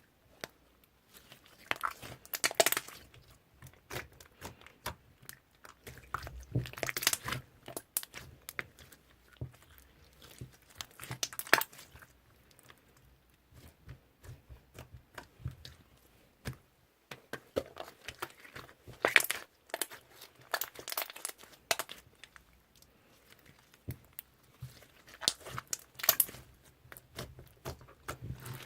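Slime being squeezed and stretched by hand, crackling and crunching in bursts of many quick clicks that come in clusters a few seconds apart.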